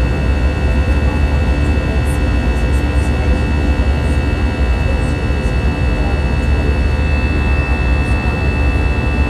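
Cabin noise aboard an Airbus A319-112 climbing out after takeoff: the steady roar of its CFM56 turbofan engines and rushing air, with a deep rumble underneath and several steady engine tones.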